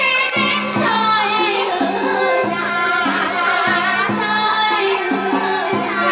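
Women singing a Vietnamese folk song with vibrato into microphones, accompanied by a live traditional Vietnamese ensemble with a drum stroke about every half second under a steady low held note.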